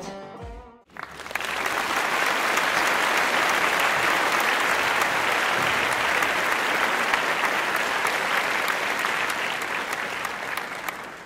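A crowd applauding steadily for about ten seconds, easing off slightly near the end. Before it, in the first second, the tail of a guitar music track fades out.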